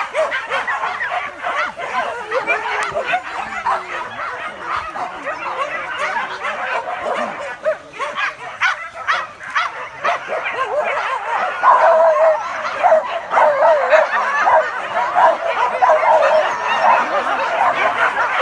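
A pack of hunting dogs yelping and baying all at once in a continuous, overlapping chorus, getting louder about two-thirds of the way in: dogs giving tongue while hunting a wild boar.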